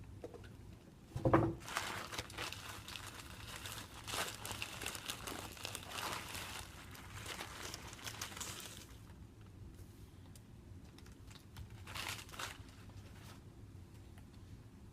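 Plastic packaging crinkling and rustling as a replacement laptop screen is unwrapped, with a short knock about a second in. The crinkling goes on for several seconds, then drops to quieter handling with one more brief rustle near the end.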